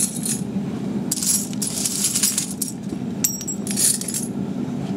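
Propane-fired shop-vac foundry furnace running steadily, overlaid by several short metallic clinks and scrapes of metal being worked at the crucible.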